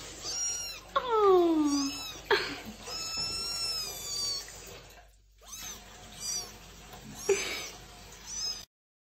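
Wet kitten sitting in a sink of bathwater meowing over and over, about eight high meows: one about a second in sliding steeply down in pitch, and a longer drawn-out one in the middle.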